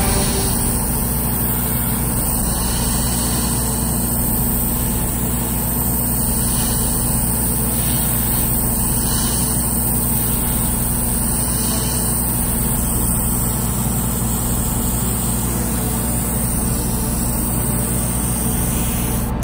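Steady hiss of an airbrush spraying surfacer primer, over the even rushing and low motor hum of a spray booth's extractor fan.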